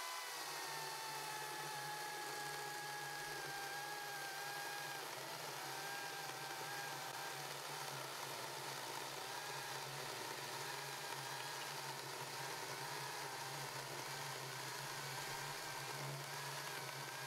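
Ryobi 40-volt brushless cordless chainsaw cutting through a hardwood honey locust log: its electric motor whine spins up, drops a little in pitch as the chain bites, then holds with small dips as it works under the load, over the noise of the chain chewing through the wood.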